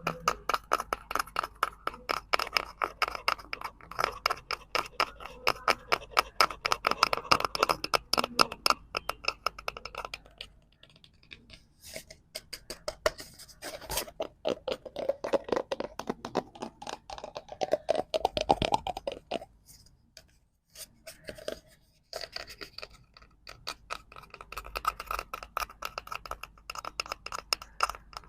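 Rapid tapping and scratching on a cardboard prop, a quick run of many clicks a second, with two brief lulls about eleven and twenty-one seconds in.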